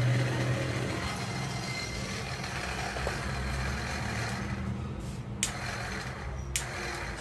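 Toyota power-steering DC motor, rebuilt as a drill with a chuck, running steadily with a low hum and whirr. Two sharp ticks sound near the end.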